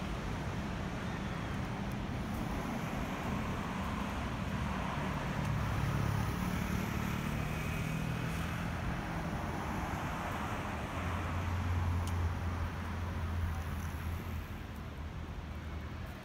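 Road traffic: motor vehicles running past with a low engine hum over tyre and wind noise. The hum is strongest about two-thirds of the way through.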